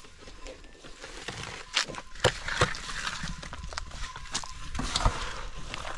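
Steel shovel scraping and scooping wet mortar, with several sharp knocks and taps as cement blocks are set into a wall.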